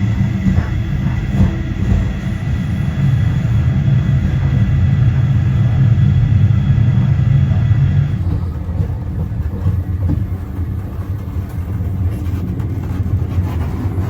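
Train running along the line, a steady low rumble with a whine of several steady tones above it; the whine stops about eight seconds in while the rumble carries on.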